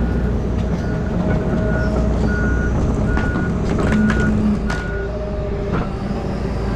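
Heavy truck's engine running under a reversing alarm that beeps roughly every 0.7 seconds, then stops about five seconds in.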